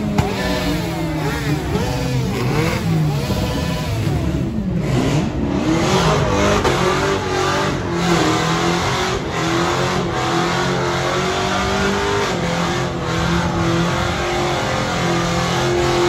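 Car engine revving hard during a burnout, its pitch swinging up and down several times over the first few seconds, then held at high, fairly steady revs over a continuous rush of noise, with thick tyre smoke coming off the car.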